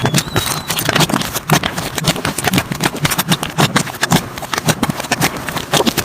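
Slime being squeezed and worked by hand, giving a dense, irregular run of wet clicks and pops.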